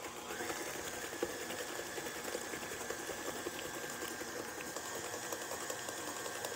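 Electric tilt-head stand mixer running, beating cookie batter; its motor whine rises in pitch about half a second in, then holds steady.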